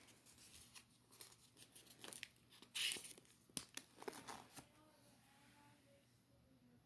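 Paper rustling and crinkling as photo prints and pages are handled and shifted, in quick scratchy bursts that are loudest about three seconds in and die away after about five seconds.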